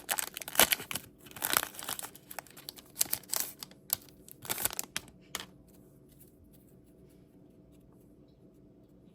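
Foil trading-card pack wrapper being torn open and crinkled in the hands, a run of crackling rips that stops about five and a half seconds in.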